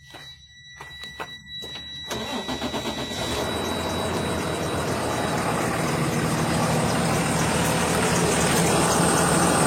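2012 Freightliner M2's diesel engine cranked by the starter with a quick pulsing for about a second, catching about two seconds in and then idling steadily, growing gradually louder.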